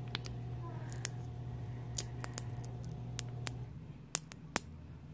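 Light, sharp clicks, about ten of them scattered irregularly, as the nutcracker notch of a pair of metal multifunction kitchen shears grips and squeezes an old, hard almond that does not crack.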